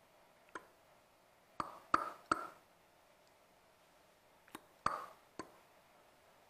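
Sharp small clicks and taps from a small hard electronics part being handled, about seven in two clusters roughly three seconds apart, a few with a short ring.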